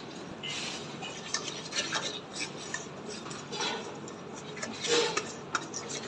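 Wire whisk beating a thick besan-and-egg batter in a stainless steel bowl: irregular scraping and clinking of the wires against the metal, with a louder clink about five seconds in.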